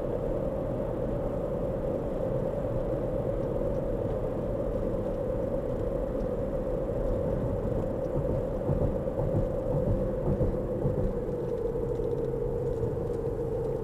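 Car driving at road speed, heard from inside the cabin: a steady rumble of tyres and engine with a hum that sinks slightly in pitch as the car slows.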